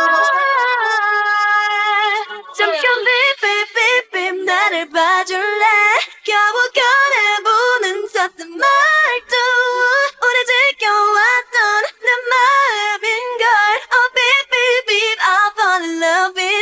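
Isolated female pop vocal with no backing track: a held sung note, then quick, choppy sung phrases broken by short gaps.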